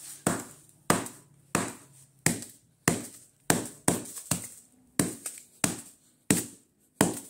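A Samsung Admire phone in a plastic bag being smashed on a concrete floor. About a dozen sharp, evenly spaced strikes come at roughly one every two-thirds of a second.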